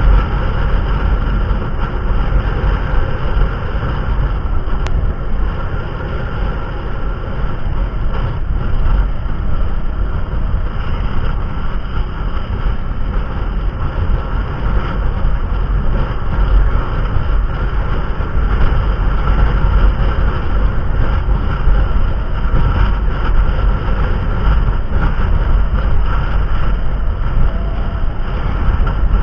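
Steady vehicle engine and road rumble on the move, with wind buffeting the microphone.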